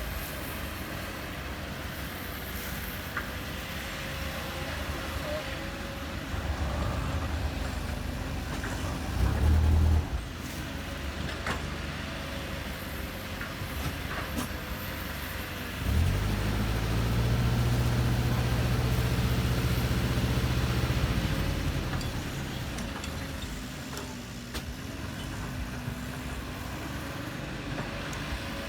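Heavy construction machine's engine running steadily, rising to a short louder burst about nine seconds in and held at higher revs for about five seconds from sixteen seconds, as the machine works.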